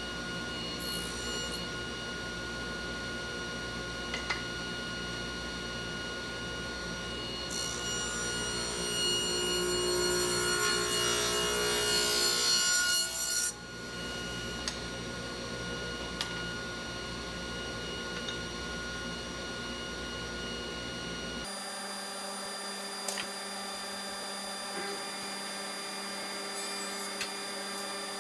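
Table saw running steadily, with a rip cut about halfway through: the blade cuts a thin 3/64-inch strip of hardwood for about five seconds, then the sound drops back to the saw spinning freely.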